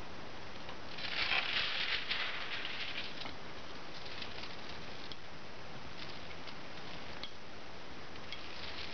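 Rubber brayer rolling black printing ink over an aluminium-foil litho plate, with scattered small crackles and clicks. About a second in, a louder rustle lasts roughly two seconds.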